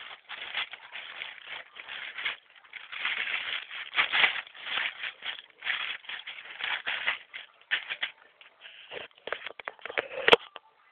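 Plastic packaging being handled: irregular crinkling and rustling in short bursts, with one sharp click near the end.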